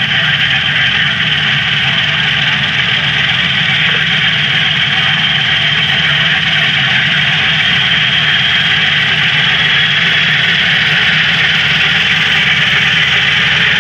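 Engine of a 1920 Pioneer 18-36 tractor running steadily as the tractor drives slowly up to and past, a loud continuous mechanical noise that grows slightly louder as it comes close.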